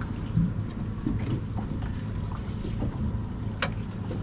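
Steady low rumble of wind on the microphone and water around a boat, with one sharp click about three and a half seconds in.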